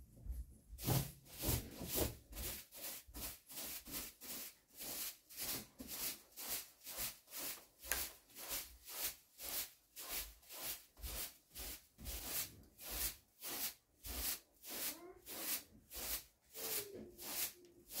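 Straw broom sweeping across a carpet, swishing in quick regular strokes, about two or three a second, starting about a second in.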